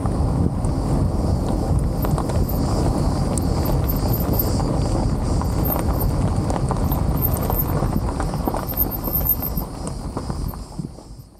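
A car driving, its tyre and road noise a steady low rumble dotted with many small clicks and knocks, fading out near the end.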